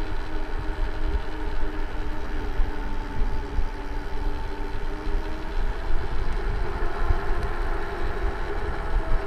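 Wind rumbling on the microphone, with a steady droning hum underneath.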